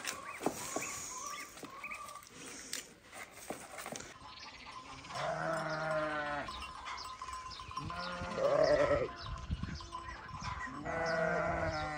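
A flock of sheep bleating, with three long bleats about five, eight and eleven seconds in. The middle one is the loudest and highest.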